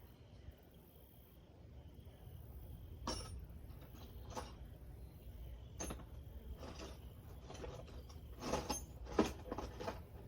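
Hand tools working on the car's intake manifold bolts: a series of scattered metallic clinks and clicks, several in quick succession near the end, over a steady low rumble.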